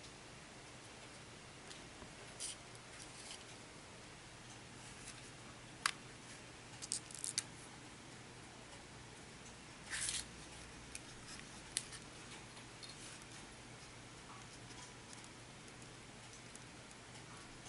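Light clicks and scrapes of fingers handling and twisting thin component wire leads together, with a few sharper clicks scattered irregularly, the longest about ten seconds in.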